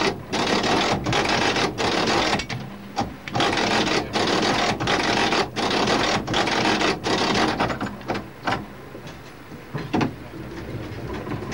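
Tramcar running on the track: a loud rattling noise with a regular beat about every three quarters of a second. About seven seconds in it fades to a quieter, steadier hum.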